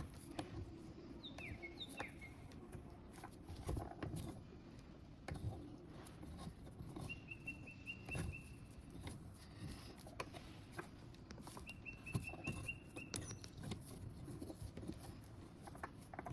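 Faint scattered clicks and light knocks of a small C-clamp being set and screwed down on a brass stamp over leather. Two runs of quick, high chirps at one pitch come in the middle and in the second half.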